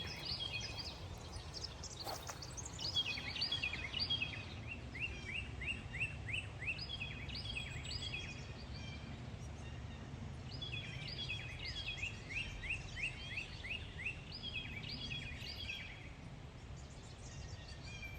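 A songbird singing: several runs of quick, repeated falling chirps with short pauses between them, over a steady low outdoor rumble.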